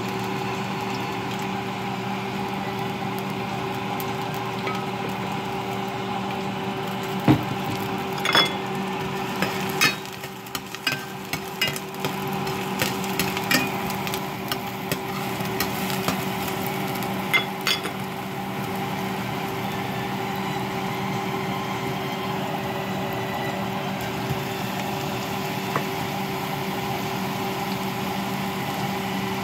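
A metal spoon stirring diced onions frying in oil in an enamel pot, with scattered clinks and knocks against the pot from about a quarter of the way in to past the middle. A steady electrical hum runs underneath.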